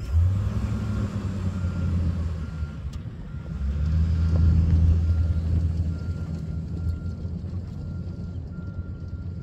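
Lifted Jeep Grand Cherokee's engine starting up and running, then pulling away over dirt: the engine note comes on suddenly at the start, rises louder about four seconds in as the SUV accelerates, then fades as it drives off.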